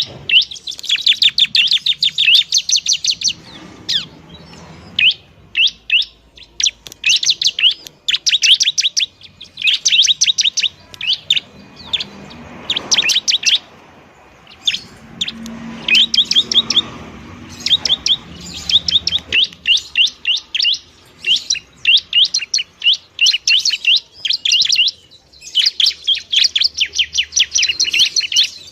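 A bar-winged prinia (ciblek) singing loudly in full song: rapid bursts of sharp, high chirps, each burst lasting one to three seconds, with short pauses between them.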